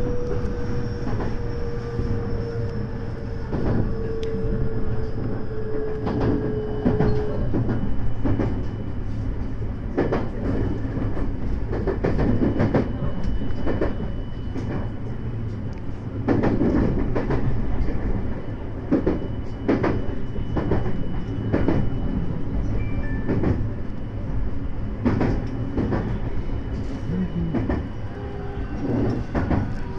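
JR West 223 series electric train running, heard from the front of the leading car: a steady rumble with repeated clacks of the wheels over rail joints and points. A whine falls slowly in pitch over the first several seconds as the train slows for the station.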